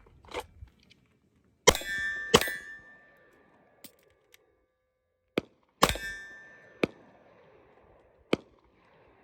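Handgun fired twice about half a second apart, each hit making an AR500 steel target plate clang and ring. Small clicks of a tactical magazine reload follow, then a third shot with the plate ringing again. A couple more sharp clicks come near the end.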